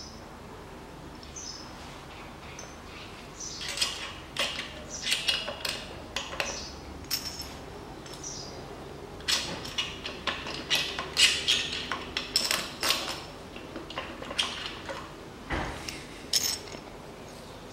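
Clinks and light knocks of the Mitsubishi 4B10's metal main bearing caps and bearing shells being handled and set down on the engine block. They come in two bursts of quick clinks, with one duller knock near the end.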